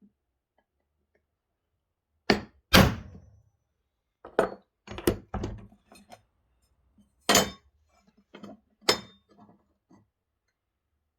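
Hammer blows on a centre punch against a steel plate, deepening the punch marks for clearance holes that are to be drilled. About seven sharp metallic strikes, irregularly spaced, with lighter knocks between them, starting about two seconds in.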